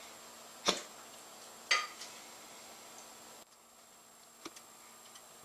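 A serving utensil clinking against cookware as roast beef and vegetables are scooped out of a roasting pan. There are two sharp clinks about a second apart, the second with a brief ring, then a few faint taps near the end.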